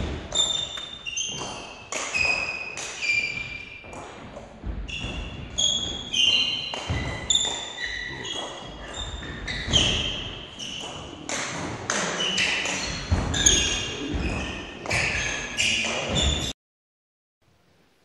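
Table tennis ball being hit back and forth in rallies: a quick series of sharp pocks as it strikes the bats and table, several a second with short pauses between points. It cuts off suddenly near the end.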